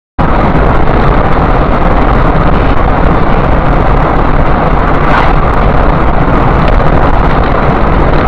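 Loud, steady road and wind noise of a car driving at highway speed, picked up by a dashboard camera inside the cabin.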